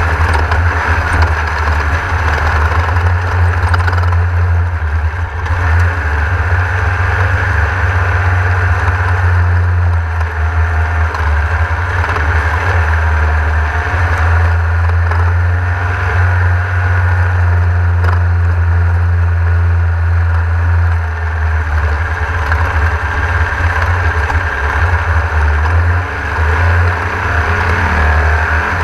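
Onboard sound of a Class 1600 off-road race car at racing speed: its air-cooled VW flat-four drones steadily under load, dipping briefly a few times as the throttle is lifted or a gear is changed, over a constant haze of road and wind noise.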